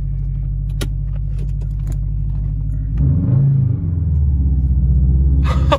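2013 Subaru WRX's straight-piped turbocharged flat-four exhaust, heard from inside the cabin, running with a steady low drone. About three seconds in the note rises briefly, then settles into a louder, deeper rumble.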